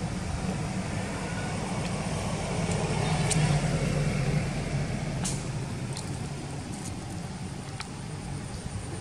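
A steady low motor rumble, like an engine running nearby. It swells about three seconds in and eases off again, with a few faint sharp clicks over it.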